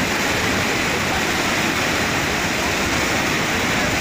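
Muddy floodwater rushing and churning through a swollen river channel: a steady, loud rush of water.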